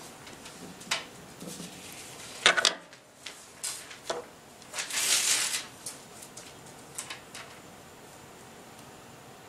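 Scattered sharp clicks and knocks, the loudest a quick cluster of three about two and a half seconds in, with a short rustle around five seconds, then only a steady faint hiss.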